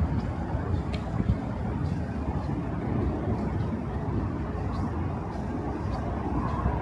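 Steady low rumble of city street traffic, with a few faint light ticks now and then.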